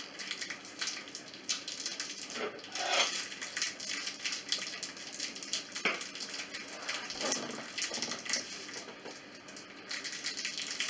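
Quiet handling sounds: scattered soft clicks and scrapes as thin metal L-brackets are set in place on the corners of a wooden frame.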